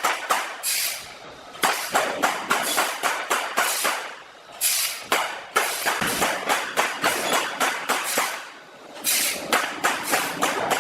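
Handsaw cutting through timber: rapid rasping strokes, about four a second, in runs of a few seconds with brief pauses about a second in, near the middle and again near the end.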